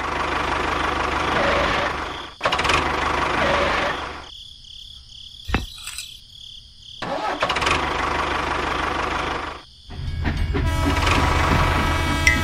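Tractor engine running in several stretches of two to three seconds that start and stop abruptly, with a low steady hum under it. A quieter gap in the middle holds two sharp clicks.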